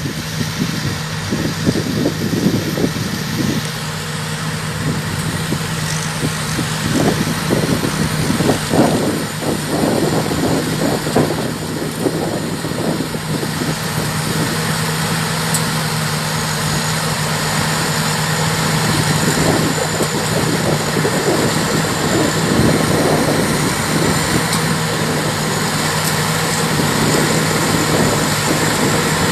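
Thai Charoen Karnchang combine harvester running at a steady engine speed: a continuous low hum with an irregular clatter over it.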